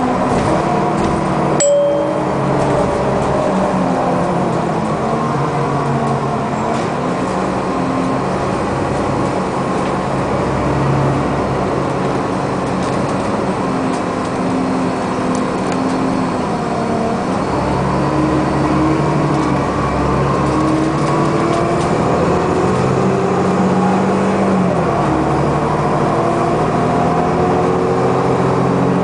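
City bus engine and drivetrain heard from inside the passenger cabin while the bus drives along. The engine note rises and falls with the bus's speed, with a sudden drop in pitch about three-quarters of the way through. There is a brief sharp knock about two seconds in.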